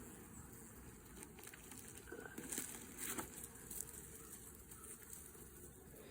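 Faint rustling, with a few light knocks and crinkles from about two to three and a half seconds in.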